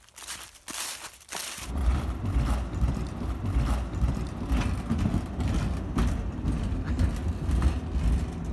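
Footsteps crunching through a thick layer of dry fallen leaves. From about two seconds in, a loud, uneven low rumble covers them, while the walking steps go on faintly under it.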